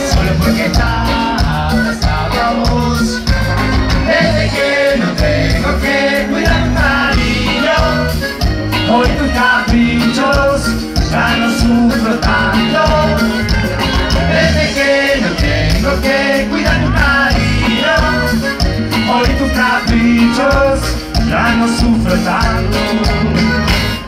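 Latin American dance music with a steady, pulsing bass beat and melody instruments.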